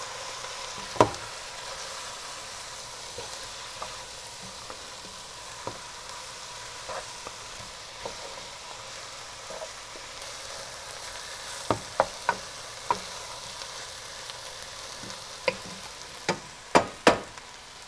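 Chicken pieces and onion sizzling steadily as they fry in oil in a pot. A few sharp knocks break in, one about a second in and several in quick succession near the end.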